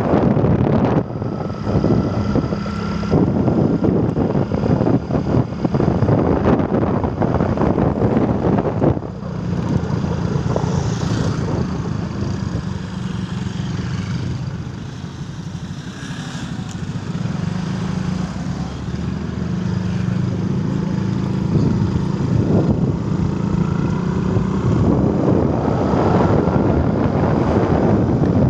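Storm wind blowing hard in gusts and buffeting the microphone. It eases about a third of the way through and builds again toward the end.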